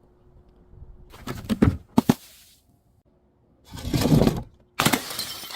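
Objects being crushed and broken: a crunch with two sharp cracks, then a heavier crunch, then a bright crackling burst near the end.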